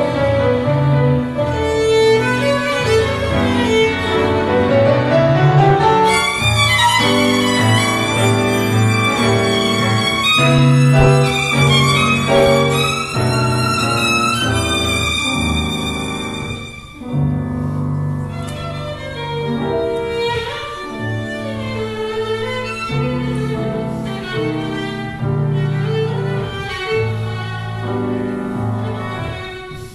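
Violin and grand piano playing a tango together. In the middle the violin moves into a higher passage, and the music briefly drops in level before it carries on.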